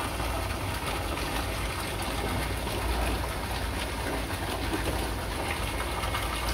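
Steady rush of moving, splashing water with a constant low hum underneath, with no break or change.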